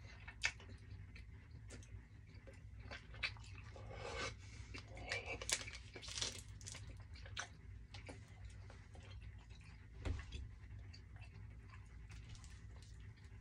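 A person chewing a soft, taffy-like fruit candy close to the microphone, with wet mouth clicks and smacks at irregular moments.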